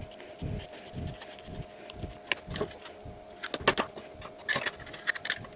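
A plastic impeller being pushed onto a drain pump's motor shaft by hand: dull knocks in the first half, then a run of sharp plastic clicks and clatter in the second half as the part goes on and the pump is handled on the workbench.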